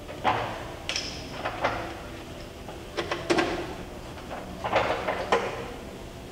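Lagun FVA-5LA geared-head milling machine giving irregular short clunks and clicks, about ten spread over several seconds, as the spindle speed is being changed.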